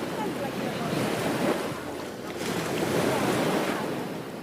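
Ocean surf washing onto a beach, a steady rushing that swells and eases as waves break and draw back.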